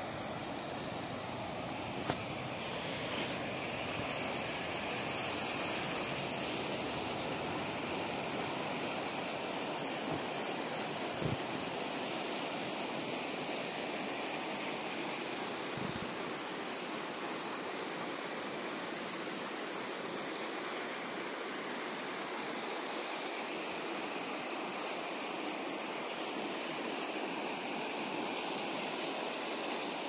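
Floodwater rushing steadily over the broken slabs and rubble of a washed-out bridge, an even, continuous rush. A faint high rapid pulsing runs through most of it, and there are two low thumps near the middle.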